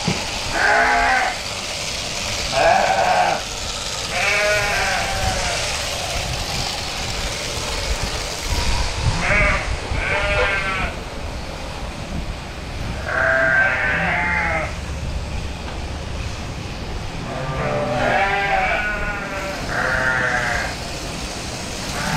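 Sheep bleating: several wavering calls from the flock, each about a second long and a few seconds apart, over a low steady rumble.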